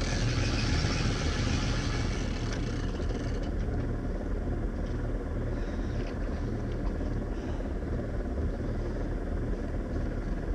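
Tow vehicle's engine idling steadily with a low rumble, with a rushing hiss over the first two seconds or so.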